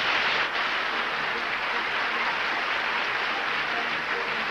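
Studio audience applauding steadily, the clapping starting abruptly and holding at an even level.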